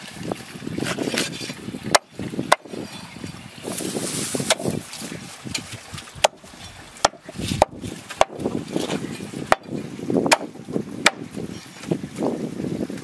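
Chopping on wood: about nine sharp, irregularly spaced strikes over rustling handling noise.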